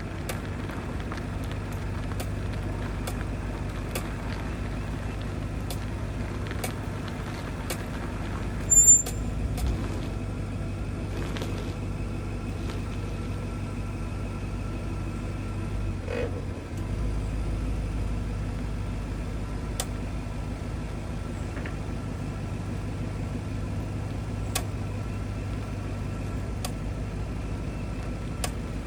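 2025 Audi RS6 moving with a steady low drone, and sharp clicks from the front wheels about once a second, thinning to occasional clicks after about nine seconds; the cause is undiagnosed. A brief loud high-pitched squeak about nine seconds in.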